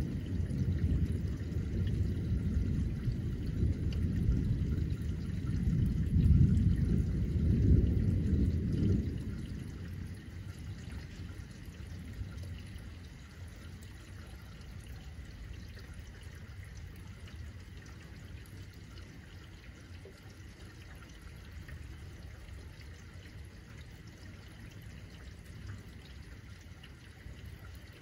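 Thunder rumbling low and rolling, loudest about six to eight seconds in, then dying away after about nine seconds, over steady rain.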